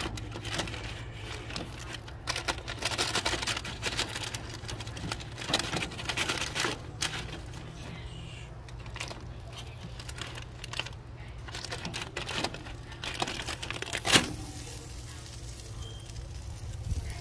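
Irregular crinkling and clicking of the paper sheet under a grilled whole fish as the fish is handled on the grill, with one sharp click about fourteen seconds in. A steady low hum runs underneath.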